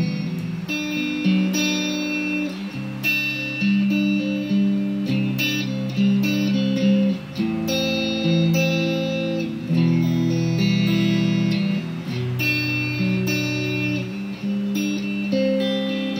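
Electric guitar, a Squier Bullet Stratocaster played through a Marshall Silver Jubilee amp and effects pedals. It plays slow, sustained chords, each ringing for a second or two before the next is struck.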